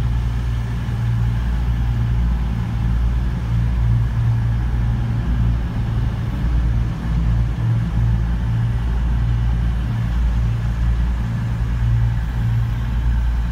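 CrossCountry Voyager diesel multiple unit moving through the station, its underfloor diesel engines giving a steady low drone that swells and eases a little.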